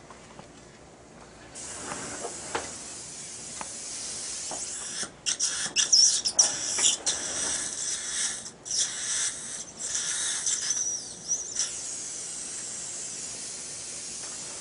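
Steady high hissing from dental surgical equipment working in the mouth during implant surgery. It starts about a second and a half in and breaks up into quick sputtering stops and starts in the middle.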